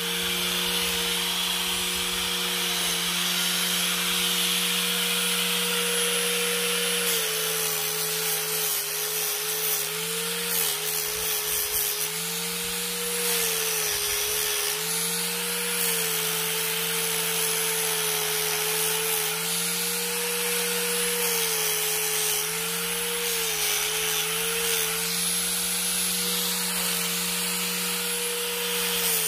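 Angle grinder fitted with a sanding disc running continuously, sanding a round wooden dowel pressed against the spinning pad. From about seven seconds in the motor's pitch sags and recovers again and again as the dowel is pushed harder onto the disc.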